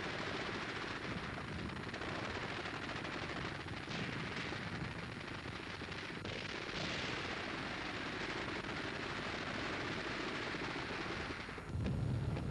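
Rapid machine-gun fire from a strafing aircraft over a continuous engine drone, on a hissy old newsreel soundtrack. Near the end the sound turns deeper and louder.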